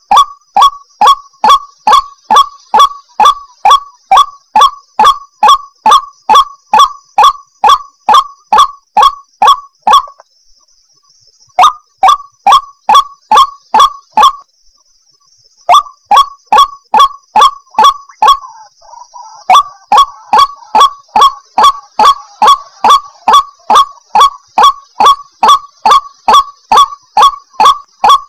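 White-breasted waterhen (ruak-ruak) calling: a loud call note repeated rapidly and evenly, about three times a second. It breaks off twice for a second or so near the middle.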